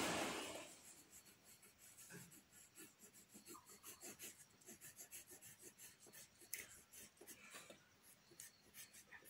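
Soft 10B graphite pencil shading on paper: a dense, scratchy rubbing at first, then faint, irregular strokes.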